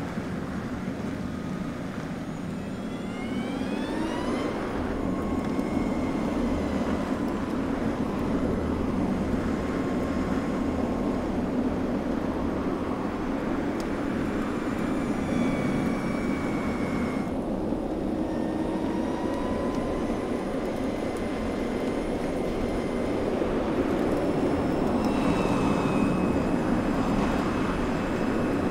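Audi A6 e-tron concept electric car driving: a steady rush of tyre and road noise, with a thin electric whine above it that rises in pitch a few seconds in and then holds and drifts through the rest.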